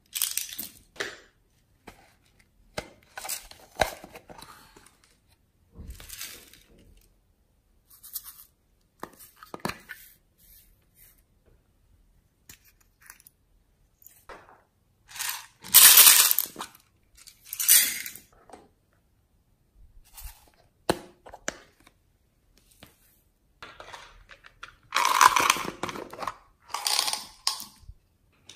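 Sprinkles and small beads poured from small plastic containers onto slime in a glass tray, in short noisy bursts a few seconds apart. The loudest bursts come about halfway through and again near the end.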